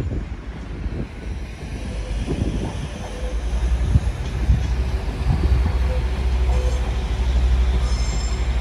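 Northern Class 195 diesel multiple unit pulling out, its engines and wheels making a steady low rumble. Faint high squeals come from the wheels on the pointwork near the end.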